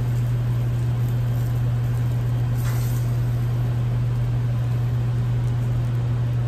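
Steady low machine hum with a faint hiss over it, unchanging throughout.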